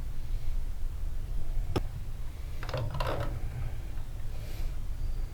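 A single sharp click, then a brief patch of rustling and scraping a second later, over a steady low rumble.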